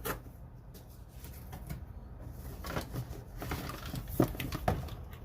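Unboxing handling noise: cardboard packaging and plastic tool parts rustling, with scattered light clicks and knocks, the loudest about four seconds in.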